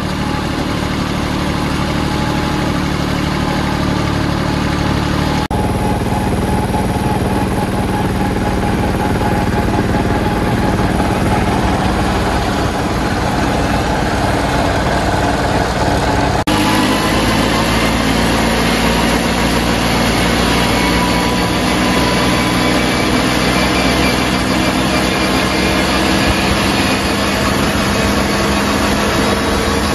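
Compact tractor diesel engines, among them a red Mitsubishi Shakti, running steadily as the tractors drive along. The engine note changes abruptly about five and about sixteen seconds in.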